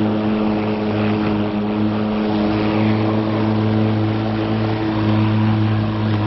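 Black & Decker electric lawn mower running steadily as it is pushed across the lawn cutting grass: a constant motor hum with a whine above it.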